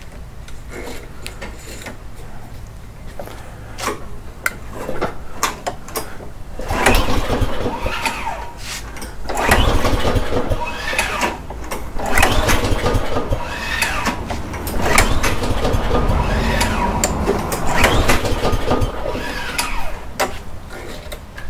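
Gravely walk-behind lawn mower's engine being pull-started: about six hard yanks on the recoil starter, beginning about a third of the way in, each cranking the engine over without it catching and running. The engine has a cheap replacement carburettor whose auto choke tends to stick, and the owner expects it to run lean.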